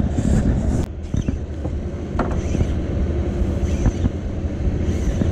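A small fishing boat's engine running steadily, with wind rumbling on the microphone.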